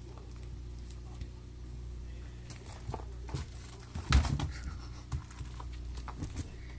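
A kitten playing with a toy: scattered light scratches, rustles and taps, with one louder knock about four seconds in, over a steady low hum.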